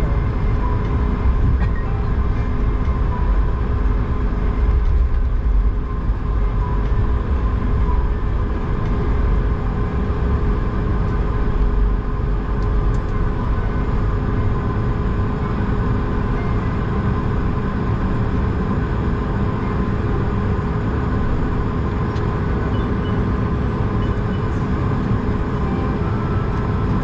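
Cabin noise inside an Airbus A220 taxiing slowly on the ground: a steady low rumble with its Pratt & Whitney PW1500G geared turbofans at idle and a steady mid-pitched hum.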